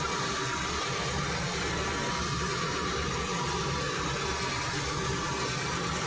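Metal lathe running, turning a steel shaft in its chuck with coolant dripping on the work: a steady low hum with a faint high whine.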